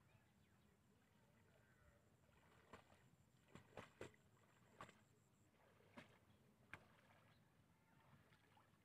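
Faint, scattered sloshes and splashes of shallow water as a person wades through it, about seven short splashes over a few seconds, starting nearly three seconds in.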